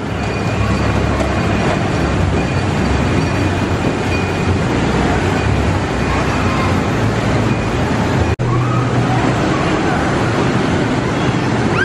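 Busy crowd hubbub and the running of electric kiddie rides at an indoor fair, a dense steady noise with a low hum beneath and a few voices. A sudden brief dropout about eight seconds in.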